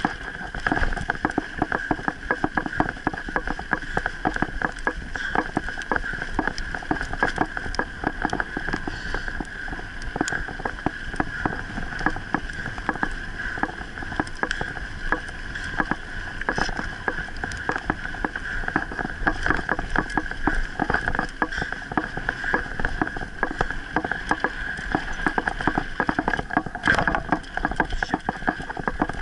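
Mountain bike riding over a dirt trail, with continual clatter and rattling of the bike and handlebar-mounted camera over the bumps and the tyres rolling on the dirt.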